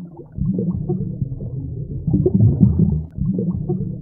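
Deep underwater-style sound effect: a low rumble below 1 kHz that swells three times.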